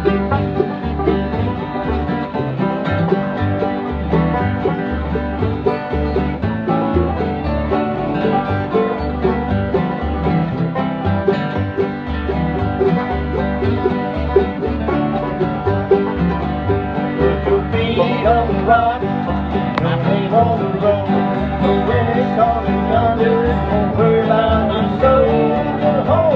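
Acoustic bluegrass jam: banjo, mandolin and acoustic guitars picking a tune together over a steady bass beat.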